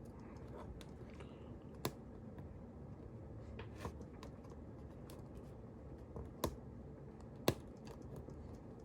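Fingers picking and scratching at a piece of tape on an action-figure box: quiet scraping with a few sharp clicks of the packaging.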